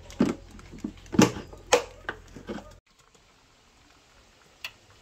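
A clear plastic cake-carrier lid being handled and fitted over the cake on its plastic base, knocking and clicking a few times in sharp strokes. About three seconds in, the sound cuts to a much quieter stretch with one more click near the end.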